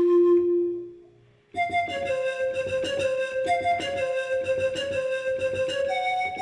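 Synthesized music: a held pan-flute note fades out, and after a brief gap a keyboard with a piano-like sound comes in about a second and a half in, playing a quick stream of repeated notes in a simple melody.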